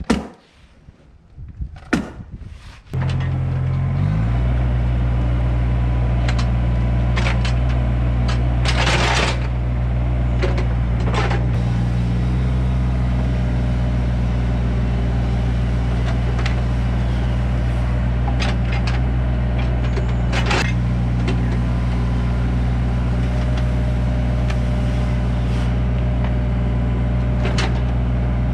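A few faint clicks, then about three seconds in a Deere 35ZTS compact excavator's diesel engine comes in and runs steadily under load while it backfills, with occasional clunks and a short rushing scrape from the bucket and dirt.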